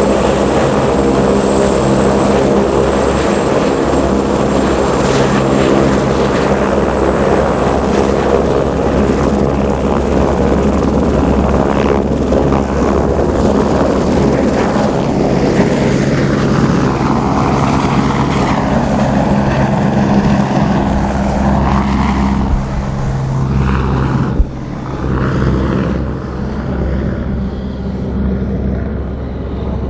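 Eurocopter AS350 helicopter's turbine and three-blade main rotor running loud and steady as it lifts off. Later the sound thins and wavers in pitch as the helicopter climbs away, growing quieter over the last several seconds.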